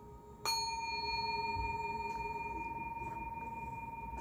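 A single bell-like ringing tone, struck about half a second in and ringing on, slowly fading.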